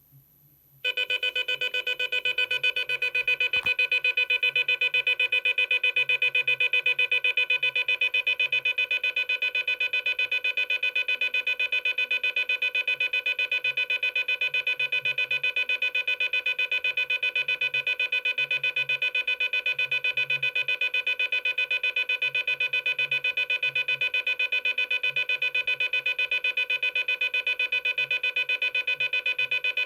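Intruder alarm sounder driven by a DA Systems Abacus 6P alarm panel, set off into full alarm. A loud, shrill, steady alarm tone starts abruptly about a second in and holds without a break, with a fast flutter in its level.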